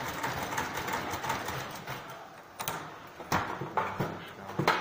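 Manual typewriter keys and mechanism clacking: a quick run of light strikes, then a few louder single strikes in the second half.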